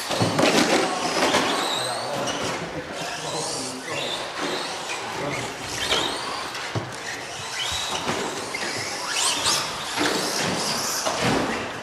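Associated SC10 4x4 electric RC short-course truck running on an indoor dirt track. Its motor whine rises and falls with the throttle, mixed with tyre squeal and scattered sharp knocks.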